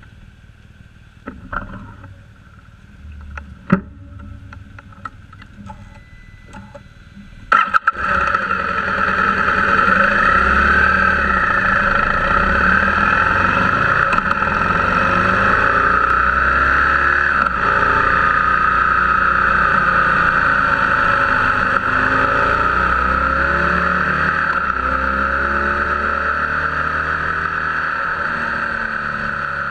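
A few sharp clicks and knocks, then about eight seconds in a BMW R1200GS's boxer-twin engine and heavy wind and road noise come in suddenly and stay loud and steady while the bike is ridden. The engine note rises and falls gently as speed changes.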